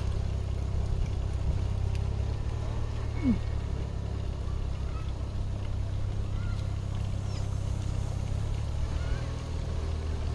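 A steady low mechanical hum, like a motor or engine running, with a short rising squeak about three seconds in.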